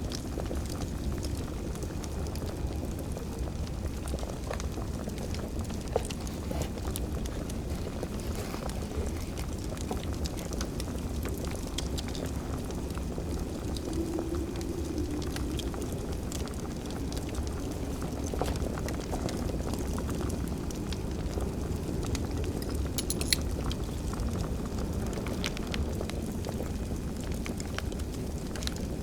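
Fire crackling over a steady low roar, with many small snaps and two sharper pops, about six seconds in and again about twenty-three seconds in.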